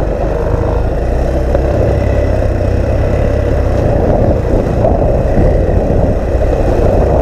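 Engine pulling hard under load while the vehicle climbs a steep hill, a steady loud rumble with a faint whine near the middle, mixed with wind buffeting on the microphone.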